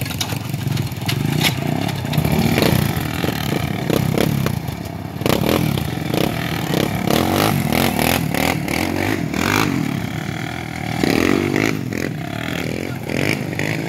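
Sport ATV engine revving up and down hard as the quad spins and slides on loose gravel, with stones spraying and clattering.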